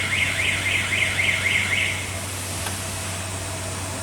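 Paper lid machine's alarm siren warbling up and down about three times a second, then cutting off about halfway through: the machine's alarm-and-stop signal. A steady low hum runs underneath.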